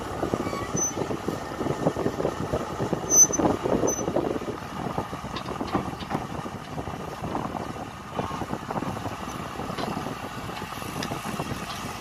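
Kobelco SK200 hydraulic excavator's diesel engine running as the machine works, with uneven clatter and knocks, the loudest about three seconds in.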